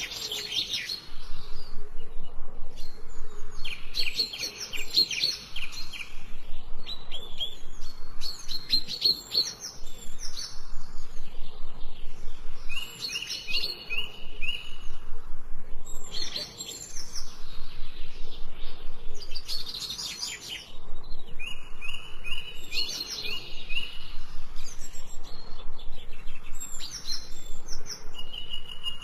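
Small songbirds chirping: phrases of rapid, sharp chirps come again and again every few seconds, with a short, even trill now and then.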